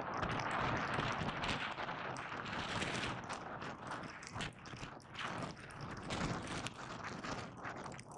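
Skis sliding and carving through soft snow, a continuous hissing scrape that swells and eases with each turn.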